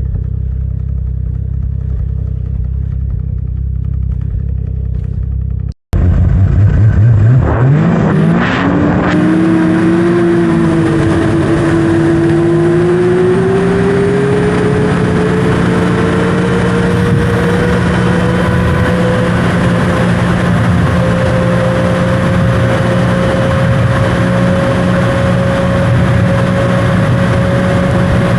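Snowmobile engine running low and steady, then, after a sudden break about six seconds in, accelerating hard: its pitch rises quickly and keeps climbing slowly as the sled runs up to high speed.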